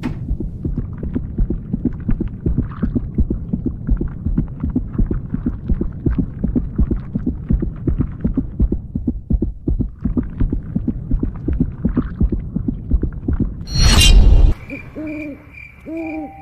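Horror sound design: a low, rapidly throbbing rumble, cut off about 14 seconds in by a loud crash, then two short hoots.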